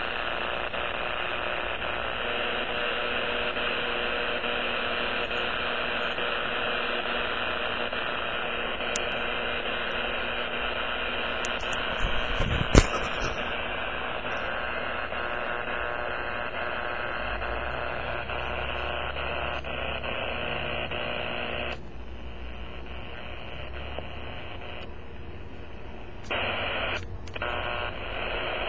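Power-line noise heard through an amateur radio receiver: a steady, harsh hiss covering the band, marked by a sharp click about halfway through. The noise drops away for a few seconds in the last third, then returns.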